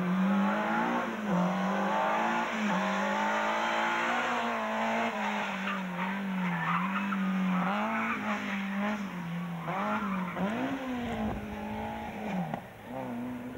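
Four-cylinder engine of a Group H slalom hatchback revving hard through the cones. The engine note rises and falls over and over as the driver accelerates, lifts and shifts between gates, and it falls away slightly near the end.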